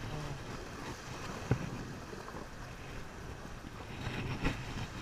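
Wind buffeting the microphone over the wash of surf, with a short knock about a second and a half in and another near the end.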